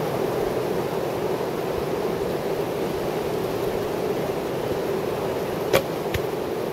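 Steady rushing wind, with one sharp snap of a traditional bow's string on release near the end, and about half a second later a fainter knock as the arrow strikes the target.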